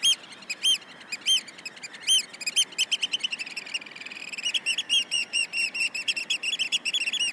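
A bird calling in short, high chirps, spaced out at first, then quickening into a rapid run of several chirps a second from about halfway through.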